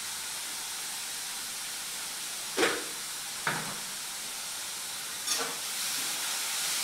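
Grated cucumber and tempering frying in oil in a kadai on a gas stove, a steady sizzle, with three sharp knocks, the loudest about two and a half seconds in.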